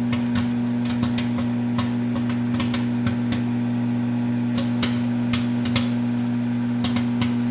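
Microwave oven running on high with a steady hum while popcorn kernels pop inside it, sharp irregular pops a few times a second. The hum cuts off just after the end.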